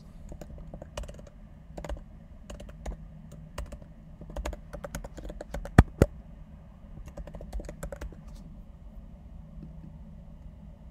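Typing on a computer keyboard: scattered keystrokes in short runs, with two sharper, louder clicks close together about six seconds in, over a faint low hum.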